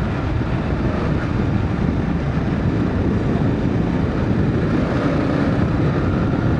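Dual-sport motorcycle running steadily on a trail, engine noise mixed with wind and tyre rumble as picked up by an on-board helmet microphone.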